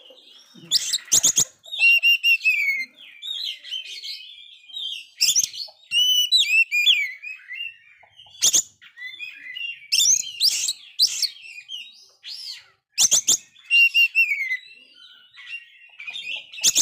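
Oriental magpie-robin singing a loud, varied song of whistled notes and falling trills, broken several times by sharp, loud notes.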